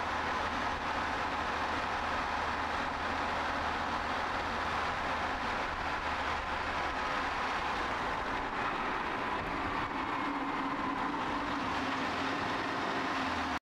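Steady road and engine noise of a car being driven, an even rushing sound without breaks; the deep low rumble fades about eight seconds in.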